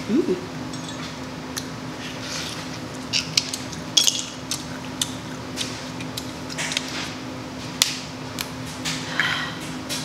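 Close-miked eating of crab legs: many short, sharp cracks and clicks of shell being broken and handled, with wet mouth sounds, scattered irregularly over a steady low hum.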